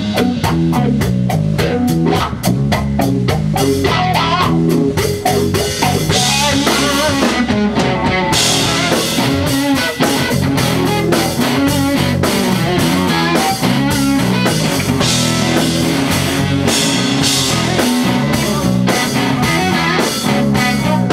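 Live rock band playing: electric guitar over a drum kit, with a steady, even drum beat.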